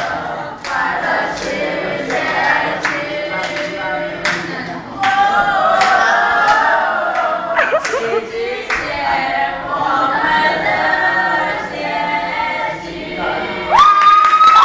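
A group of young voices singing a Mandarin pop song together in chorus, with sharp hand claps on the beat through the first half. Near the end a loud, high, held whoop cuts in over the singing.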